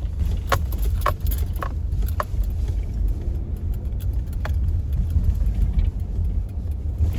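Vehicle driving with a steady low rumble. Four sharp clicks come about half a second apart in the first couple of seconds, and one more about four and a half seconds in.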